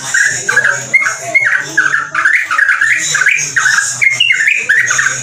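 Yellow-vented bulbul (trucuk) singing a fast, unbroken string of short chirping notes, several a second: the rapid 'ropel' style of song.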